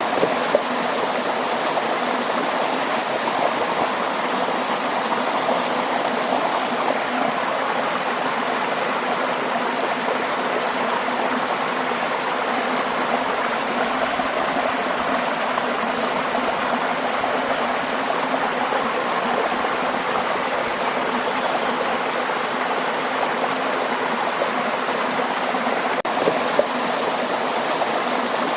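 Waterfall: water falling and rushing in a steady, even roar without a break.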